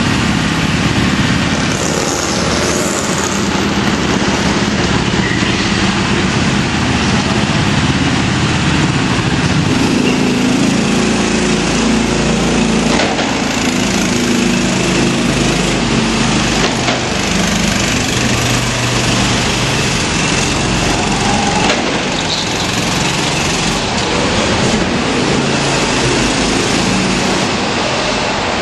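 Small go-kart engines running hard as the karts lap the track, their pitch rising and falling with the throttle.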